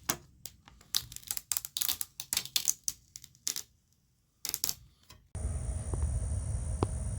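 A quick, irregular run of sharp clicks and crackles, stopping briefly and then a few more. About five seconds in it cuts abruptly to a steady hum with a thin, high, continuous chirring of crickets.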